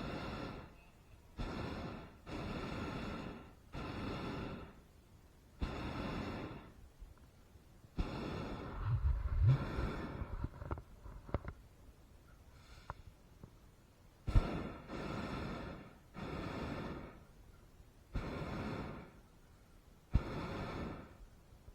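Hot air balloon propane burner fired in a series of short blasts of about a second each, with a few seconds' pause partway through. A longer blast with a low rumble comes a little before the middle.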